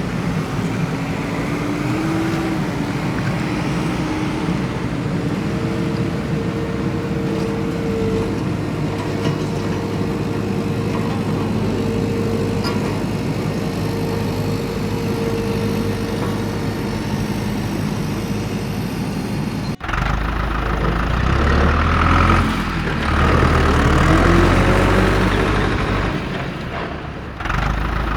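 Engine running steadily, with an abrupt switch about twenty seconds in to a louder, lower, pulsing engine sound.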